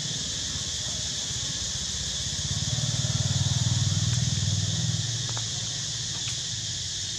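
Low engine hum of a passing vehicle, swelling from about two and a half seconds in and fading again by five seconds, over a steady high hiss.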